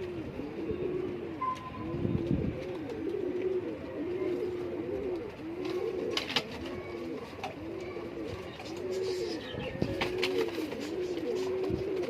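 Domestic pigeons cooing: a low rising-and-falling coo repeated about once a second.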